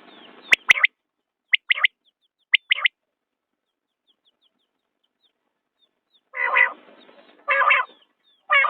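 Common quail calling: a harsh burst of calls at the start and again about six seconds in, with short quick notes between, separated by a few seconds of quiet. A few sharp clicks fall in among them.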